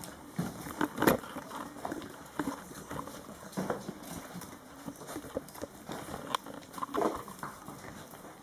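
Five-week-old German Shorthaired Pointer puppies scuffling together on a tile floor: irregular clicking and pattering of puppy claws on the tile, with a few louder thumps.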